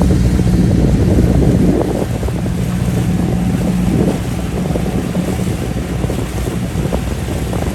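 A boat's engine running with a steady low hum, mixed with wind on the microphone and water noise.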